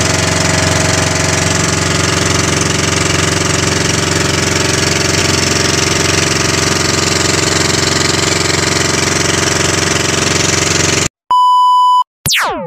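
Outrigger boat's engine running steadily at constant speed. It cuts off abruptly about eleven seconds in, followed by a steady test-tone beep lasting about a second and then a quick falling pitch sweep.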